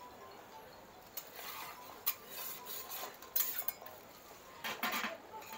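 Clatter of metal cooking utensils and pans at a street-food stall: several sharp clinks and scrapes, loudest a little past the middle and near the end.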